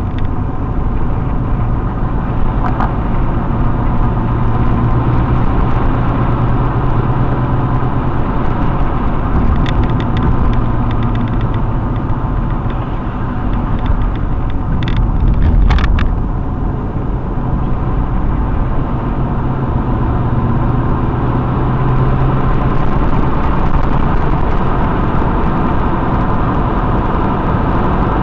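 A car driving along a highway, heard from inside the cabin: a steady engine hum and tyre rumble on the road. A few brief clicks come about a third of the way in, and a short louder knock near the middle.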